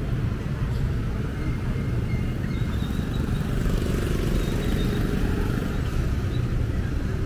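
Street traffic: cars and motorcycles passing on a rain-wet road, a steady low rumble of engines and tyres.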